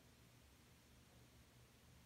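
Near silence with a faint steady low hum from the running ceiling fan and its fluorescent light fixture.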